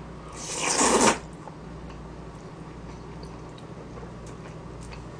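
One loud slurp of spicy chewy jjolmyeon noodles, lasting under a second, about half a second in. Only a few faint small clicks follow.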